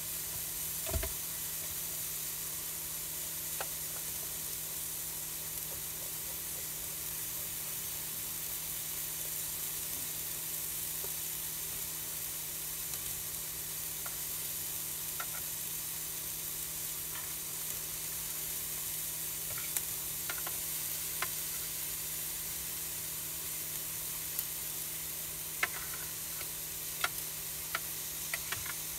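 Chopped smoky bacon, onion and red and green peppers sizzling steadily in an open Ridge Monkey pan over a gas flame, with a few sharp pops of spitting fat, more of them near the end.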